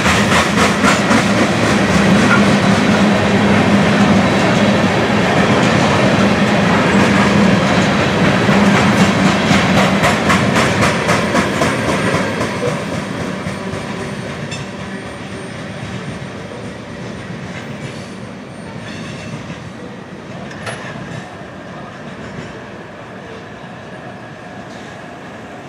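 Covered hopper cars of a freight train rolling past, steel wheels clicking rapidly over the rail joints. About halfway through the last car goes by, and the rumble fades away as the train recedes, with a faint wheel squeal.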